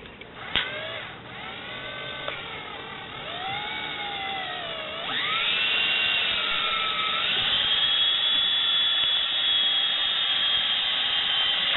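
Small electric power tool motor whining, its pitch dipping and rising several times, then holding a steady high whine for the last few seconds before it stops.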